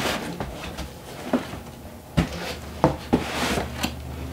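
Cardboard scraping and knocking as an inner box is worked up out of a tall cardboard shipping carton: a string of irregular knocks and rubs, about eight in all.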